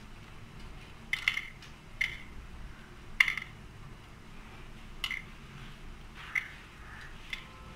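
Shell of a hard-boiled egg being cracked and peeled by hand: about six sharp little cracks and clicks, roughly one a second, the loudest about three seconds in.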